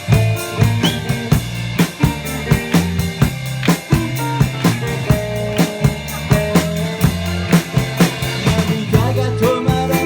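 Rock and roll band playing live in an instrumental passage: a drum kit keeps a steady beat of bass drum, snare and rimshots over bass and electric guitar.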